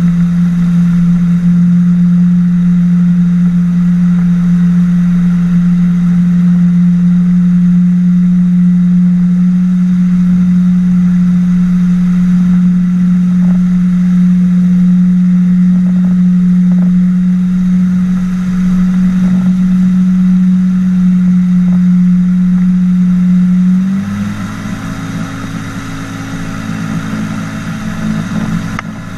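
Flying boat's engine and pusher propeller running steadily at speed on the water, a loud even hum. Near the end the engine note suddenly changes, splitting lower and higher, and the sound gets quieter.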